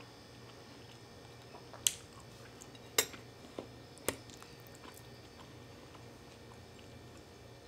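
Metal fork clinking sharply against a plate three times, about a second apart, as it cuts into and spears ravioli, with a fainter tap between and quiet chewing.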